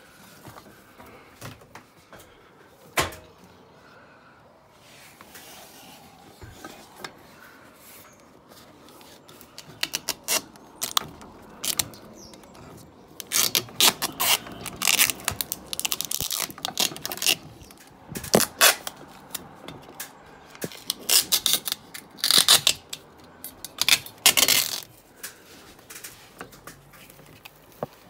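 Handling sounds: irregular sharp clicks, scrapes and rustles, sparse at first and thick in the second half, as hands work a rope around the tape-wrapped plastic-pipe mast.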